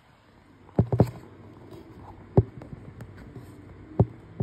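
Five sharp clicks or knocks at uneven intervals: two close together about a second in, one near the middle and two near the end.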